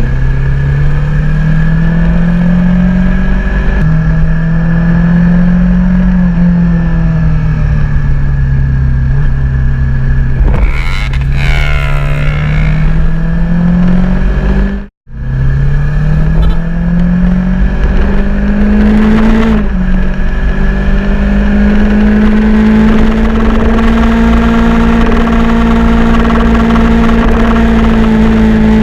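Honda CBR250RR motorcycle engine under way, its revs rising and falling with a sudden drop in pitch at each gear change, about three times. The sound cuts out completely for a moment about halfway through.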